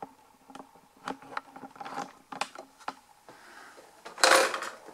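Handling noise as the camera and the large RC monster truck are moved about: scattered light clicks and knocks, then a loud rustling scrape about four seconds in.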